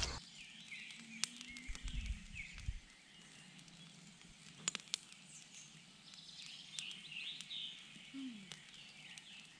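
Faint woodland ambience with small birds chirping, and a few sharp clicks, two of them close together about five seconds in.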